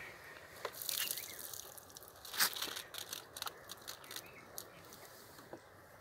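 Thin plastic bottle crackling and clicking in the hand as it is shaken to tip a snake out, in scattered sharp snaps with the loudest about two and a half seconds in.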